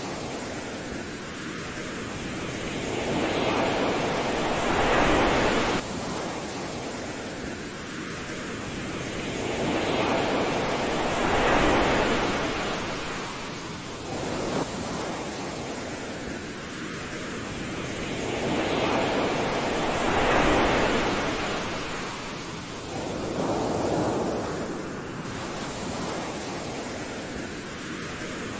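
Ocean surf washing up a beach: a steady rush of waves that swells and falls back about every seven or eight seconds.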